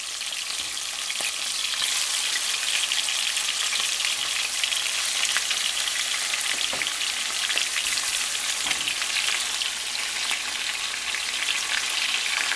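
Chicken wings searing in hot oil in a frying pan: a dense, steady sizzle with fine crackles and pops.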